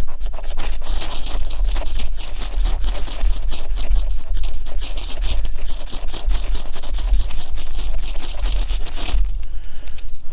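Brand-new ferrocerium rod scraped hard and rapidly with a steel edge, stroke after stroke, throwing sparks onto tinder; the scraping stops about nine seconds in.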